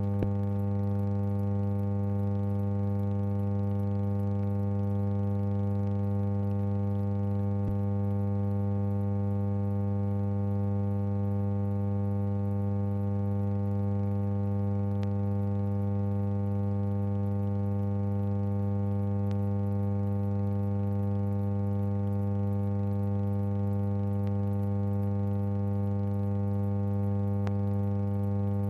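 Steady electrical hum, like mains hum, with a stack of overtones and a few faint clicks; it is the only sound, since the silent film footage carries no recorded sound.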